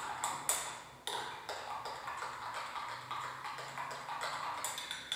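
Spoon clinking against the inside of a drinking glass while stirring water and dish detergent, about three light ringing taps a second, with a short pause just under a second in.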